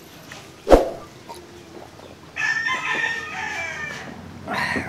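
A rooster crowing once, a long call starting about halfway through. A single sharp knock comes about a second before it.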